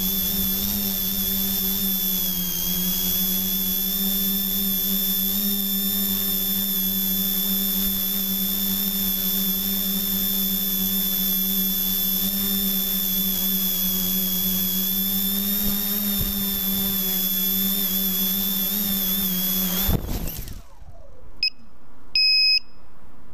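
Electric motors and propellers of a small V-tail quadcopter whining steadily in flight, heard from on board. About twenty seconds in there is a sudden knock and the motors wind down as it crashes, followed by a few short electronic beeps.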